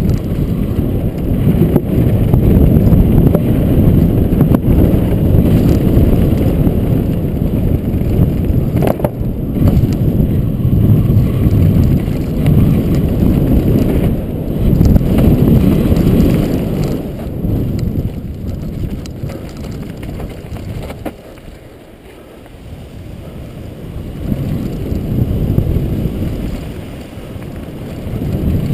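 Wind buffeting a helmet camera's microphone together with the rumble and rattle of a downhill mountain bike's tyres and frame over a rocky dirt trail at speed. The rush eases off for a few seconds about three quarters through, then builds again.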